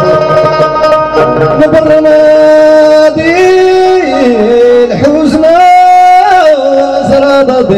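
Live band music from a Moroccan Saharan group: a male singer sings through the stage microphone, holding a long note that bends up and down from about three seconds in. Behind him are a plucked banjo and percussion.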